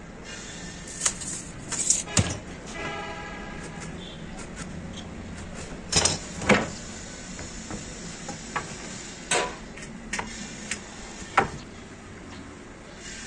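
Pine strips and a tape measure being handled on a wooden workbench: scattered knocks and clicks as the wood is set down and shifted and the tape is worked, with a brief tone about three seconds in.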